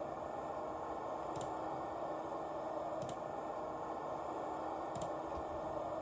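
Steady hissing ambient sound played through the small speaker of an ESU LokSound 5 Fx decoder in an Atlas Metra Nippon-Sharyo gallery cab car model, with three faint ticks about two seconds apart.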